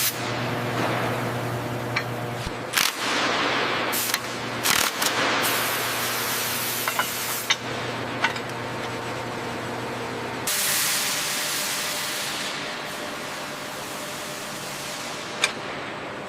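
Steady machine hum under a hiss, broken by several sharp knocks. About ten and a half seconds in, the hum stops abruptly and a brighter, steady hiss takes over.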